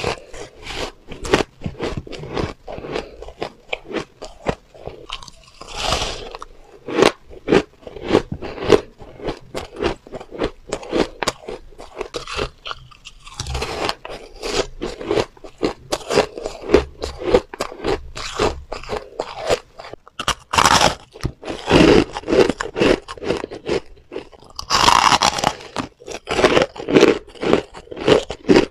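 Coloured soft shaved ice being bitten and chewed close to a clip-on microphone: a steady run of rapid crunches, broken by a few longer hissing bursts.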